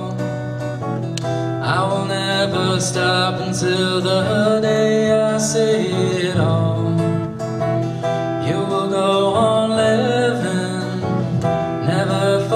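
A man singing live to his own acoustic guitar, which he strums and picks steadily beneath the voice.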